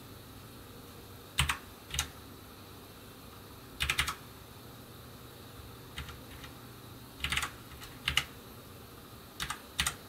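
Computer keyboard keys pressed one at a time with pauses between them, some in quick groups of two or three, while setting the clock in the BIOS date and time menu.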